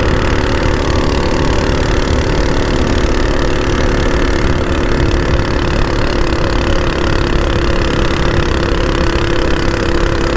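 Harbor Freight Predator 212cc single-cylinder four-stroke engine on a Baja mini bike running flat out on a top-speed run, its pitch held steady at high revs. Heavy wind rumble on the microphone from riding at speed.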